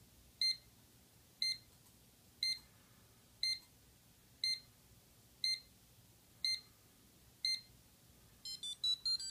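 Buzzer beeping a short high C (C7) once a second, eight evenly spaced beeps as an electronic countdown timer ticks down. Near the end it starts a quick run of short notes rising in pitch: the C-major scale that plays when the countdown finishes.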